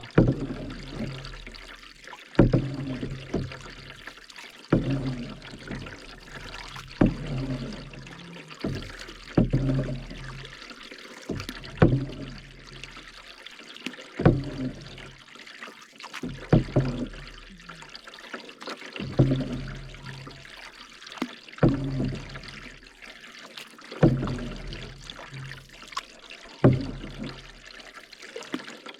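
Canoe paddle strokes in lake water, a steady rhythm of about one stroke every two and a half seconds, each a sharp splash of the blade going in followed by water swirling and dripping off the paddle.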